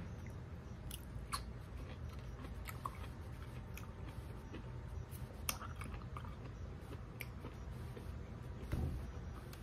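A person chewing a mouthful of green beans with a slight crunch, a few small sharp clicks scattered through, over a steady low hum.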